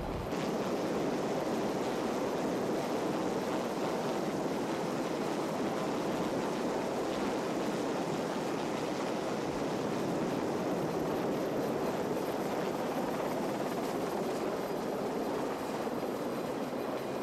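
Westland Sea King search-and-rescue helicopter hovering during a winch lift: steady, continuous rotor and turbine noise.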